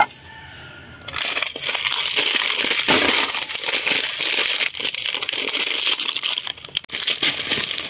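A plastic instant-noodle packet crinkling and crackling as it is handled. The crinkling starts about a second in and continues as a dense run of small crackles.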